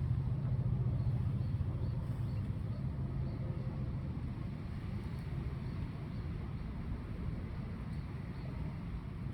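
Low engine hum of a motor vehicle going by, loudest in the first few seconds and then fading, with faint high chirps repeating in the background.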